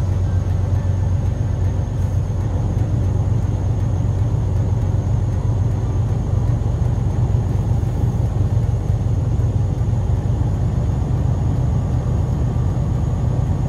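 Semi-truck diesel engine held steady at raised revs from inside the cab, the driver's foot on the throttle so the air compressor builds brake pressure toward 120–125 PSI.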